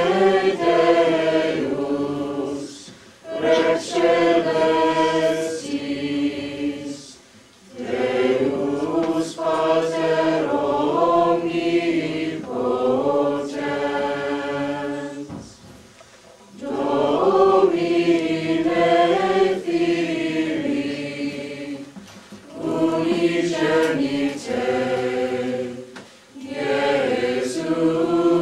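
Mixed-voice choir of men, women and teenagers singing together in sustained phrases, broken by several short pauses.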